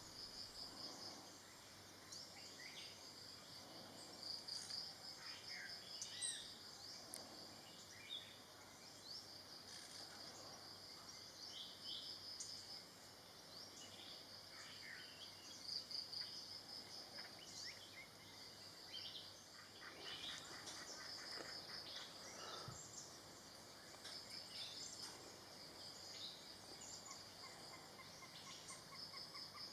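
Faint tropical forest ambience: a high insect trill pulsing steadily, with scattered short chirps and whistles from small birds. Near the end a low pulsed trill comes in, rising slightly in pitch.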